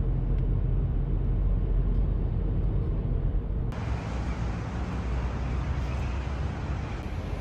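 Steady low rumble of vehicle and road noise, with a lighter hiss that grows louder a little past halfway through.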